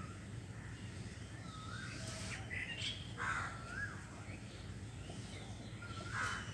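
A crow cawing, with two loud harsh caws about three seconds in and near the end, while other birds give short whistled chirps; a steady low background hum runs under it.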